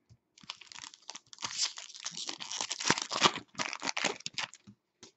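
Foil wrapper of a 2015-16 SP Authentic hockey card pack being torn open and crinkled by hand: a dense run of crackling that starts about half a second in and dies away shortly before the end.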